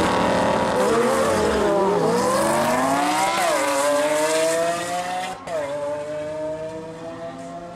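Lamborghini Aventador LP700-4 V12 and Huracán V10 engines at full throttle off the drag-strip start line, climbing in pitch through the gears with a sharp drop at each upshift, then fading as the cars pull away.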